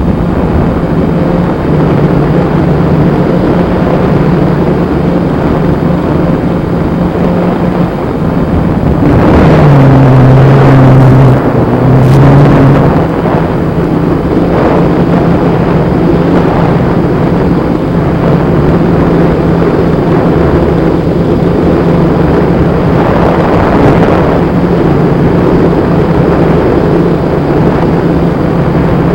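Blade Chroma quadcopter's motors and propellers droning steadily in flight. About ten seconds in, the drone drops lower in pitch and gets a little louder for a few seconds, then goes back to its usual tone.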